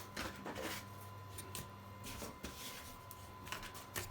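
Handling noise from foam and plastic model-airplane parts: scattered light clicks, taps and rustles, over a faint steady hum.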